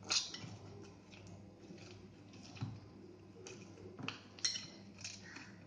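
Hand kneading oiled rice-flour murukku dough in a ceramic bowl: fingers and the bowl knocking in a few sharp, irregular clicks, the loudest near the start and about four and a half seconds in, over a faint steady hum.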